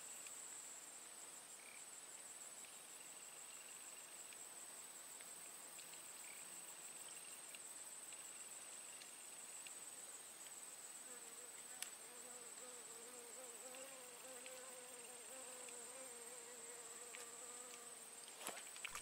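Insects trilling: a steady high-pitched drone, with a lower trill that comes and goes. From about eleven seconds in, a flying insect's wavering buzz joins it, and there is a single faint click near the middle.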